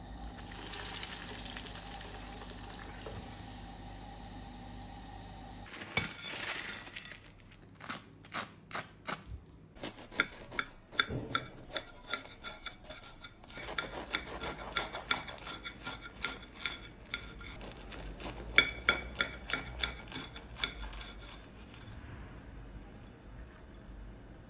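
Hot oil sizzling as a breadcrumb-coated bread round goes into the pan to deep-fry. Then a knife crunches through the crispy fried breadcrumb crust, with many sharp crackles and clicks in quick runs, stopping near the end.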